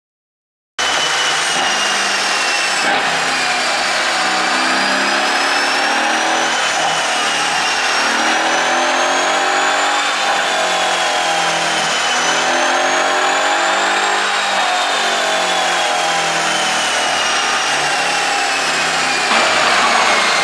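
Mercedes-AMG SL63's twin-turbo V8 with a tuned ECU, running steadily under way, its pitch rising and falling slowly again and again. It starts abruptly about a second in.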